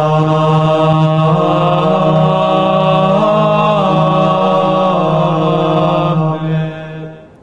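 A long chanted "Amen" sung on one drawn-out held note, stepping briefly up in pitch midway, then fading away near the end.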